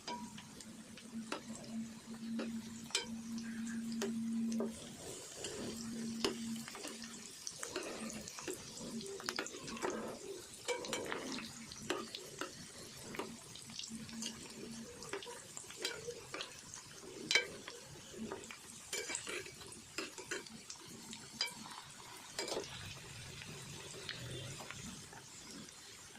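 Chicken balls deep-frying in oil with a soft sizzle, while a utensil clinks and scrapes against the pan as they are stirred and turned. A low steady hum comes and goes in the first half.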